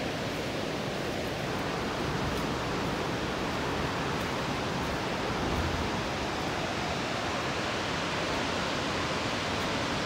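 Wallaman Falls, a single-drop waterfall of about 268 metres, heard as a steady, even rush of falling water.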